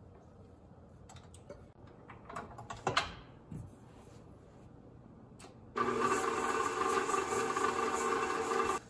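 A few knocks and clatters, then an electric bowl-lift stand mixer's motor running steadily for about three seconds and stopping suddenly as it creams shortening with brown and white sugar.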